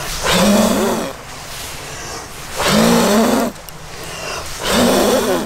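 A person blowing hard on smouldering leaves and sticks in a campfire pit to get the fire to catch: three long, breathy blows about two seconds apart, each with a low hum in the breath.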